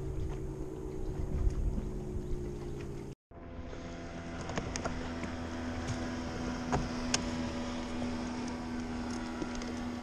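A boat motor running steadily as the boat moves over the water, with wind buffeting the microphone. The sound drops out briefly about three seconds in, then a steadier motor hum returns with scattered light clicks.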